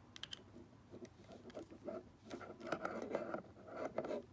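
Light clicking and rubbing of plastic Smart Doll Cortex frame parts as a leg joint is handled and bent, a run of small irregular clicks that gets busier in the second half.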